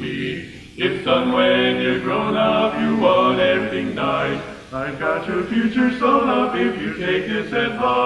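Male vocal quartet singing a cappella in four-part harmony, the voices coming back in after a short break about a second in.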